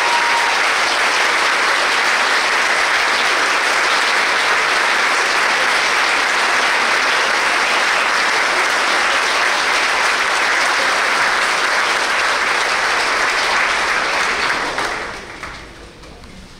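Large crowd applauding steadily, then dying away about fifteen seconds in.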